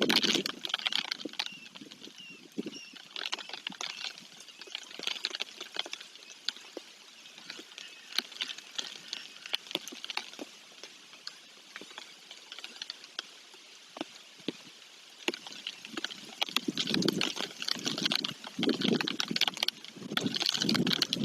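Rain falling, with individual drops ticking irregularly; it grows louder in the last few seconds.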